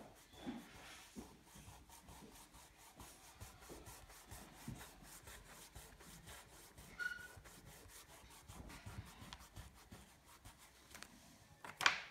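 Fingertips rubbing and smudging oil pastel on sketchbook paper: a faint, dry scratching made of many small strokes. A brief faint squeak about seven seconds in and a sharp click near the end.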